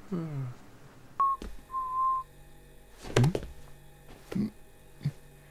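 Cartoon soundtrack: a short voiced sound falling in pitch, then two brief high beep-like tones about a second apart. Later come two short voiced calls and a click over a low steady hum.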